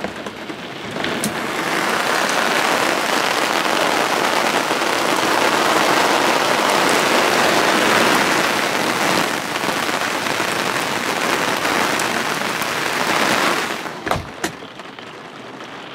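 Heavy rain pouring down in a thunderstorm, heard from under a caravan awning as a loud, even hiss. Near the end, a few sharp knocks, and the rain becomes much quieter.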